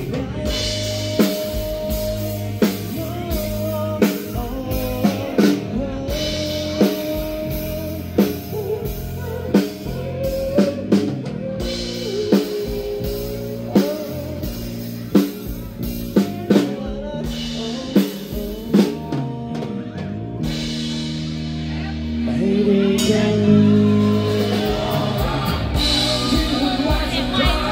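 Live band music: a drum kit beat with electric bass and a male lead voice singing. About 22 seconds in, the music gets louder and fuller.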